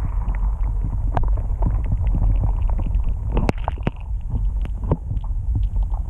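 Steady low rumble with many scattered light clicks and knocks.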